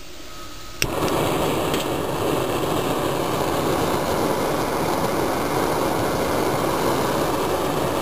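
Small tube-fed gas burner: a sharp click a little under a second in as it lights, then the steady roar of its blue flame.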